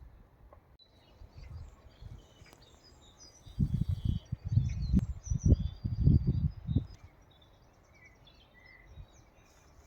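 Birds chirping faintly in the background, broken by about three seconds of loud, low rumbling bursts from about three and a half seconds in.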